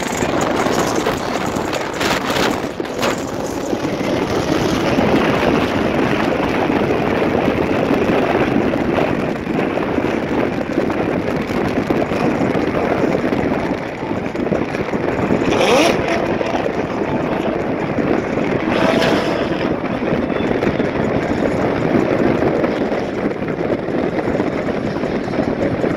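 Procharger-supercharged Corvette V8 running hard at speed, a loud, steady engine and rushing noise with a couple of brief sharper bursts about two-thirds through.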